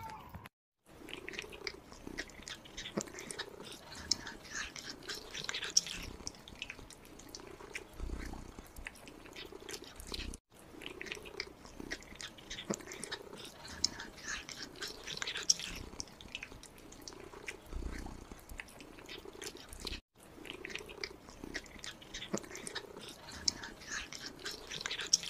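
Several kittens eating raw meat from a shared tray: a dense, irregular run of wet chewing and smacking clicks, with short soft low sounds from the kittens mixed in between bites.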